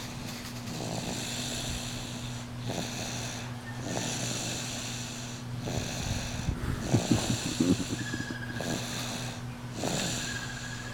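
A sleeping person snoring loudly: a string of raspy snore breaths, one every second or two, some with a rattling rumble.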